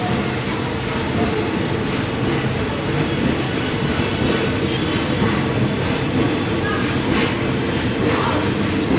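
Passenger train pulling slowly out of a station, heard from on board: a steady, even noise of wheels and running gear with a hum underneath.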